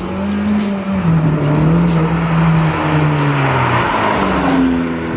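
Honda Civic Type R's turbocharged 2.0-litre four-cylinder engine pulling with the Eventuri intake fitted, its note rising and falling as the car is driven.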